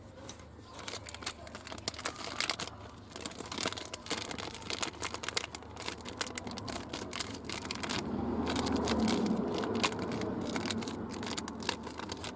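Plastic packaging bags crinkling and rustling as parts are pulled out of them, a dense run of irregular crackles that grows louder about eight seconds in.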